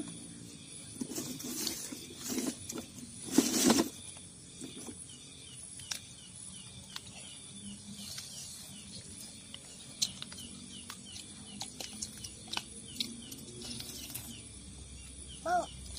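Metal spoons clicking and scraping against plastic bowls as children eat, with a few louder rustling noises in the first four seconds. A faint run of repeated chirps continues throughout, and a short high call sounds near the end.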